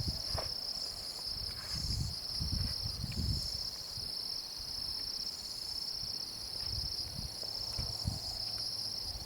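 Steady, high-pitched chorus of night insects, a continuous shrill trill. A few soft low rumbles come and go under it.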